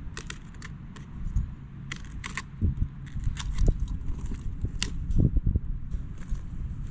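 Handling noise of an expansion-joint strip being worked in along a concrete wall among rebar and wire mesh: scattered light clicks and clinks, with a few heavier knocks about halfway through, over a low rumble.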